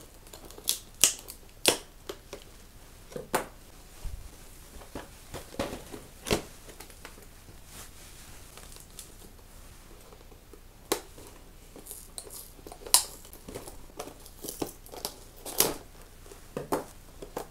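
Scissors snipping through sellotape on a plastic toy package, with the plastic crinkling as it is handled. The snips and crackles come irregularly, in clusters near the start and in the last few seconds, with a quieter stretch in the middle.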